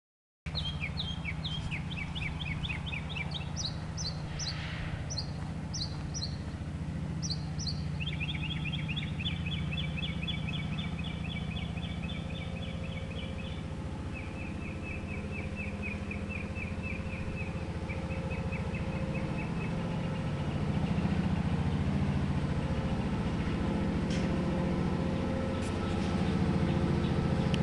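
Industrial air compressor running with a steady low hum and a constant tone, a little louder in the last third. Birds chirp over it in repeated rapid trills for the first two-thirds.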